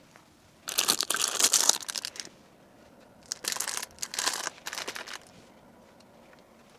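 Packaging crinkling as it is handled and packed, in two bouts of a second or two each.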